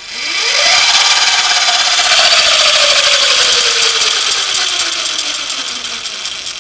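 A 1000-watt, 1⅓ hp electric scooter motor and its chain drive running under throttle. A loud whine rises quickly in pitch in the first second, then sinks slowly over the following seconds, over a steady rattling hiss from the drive.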